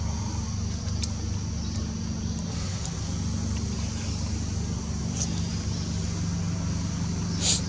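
Steady low engine hum with no change in speed, under a faint high hiss and a few light clicks. A short, sharp high sound comes near the end.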